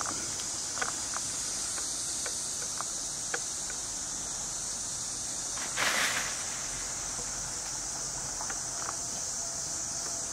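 Steady high-pitched chorus of forest insects, with a few faint clicks and a short rustle about six seconds in.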